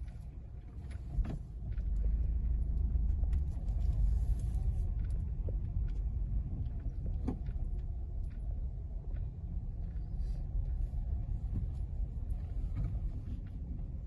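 Car running at low speed, heard from inside the cabin: a steady low rumble of engine and tyres that grows louder about two seconds in.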